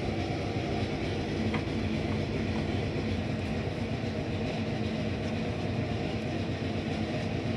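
Kitchen oven running with a loud, steady mechanical drone and hum, a noise the owners say the oven has made since they moved in and that needs a repairman. One light knock comes about a second and a half in.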